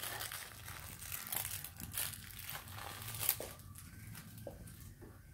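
Maine Coon cat chewing and mouthing a fabric toy: a continuous crackly, crinkling sound with irregular sharper crackles.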